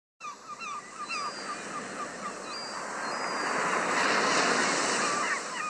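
Surf washing on a shore, swelling to its loudest about four seconds in, with birds calling repeatedly in short chirps over it.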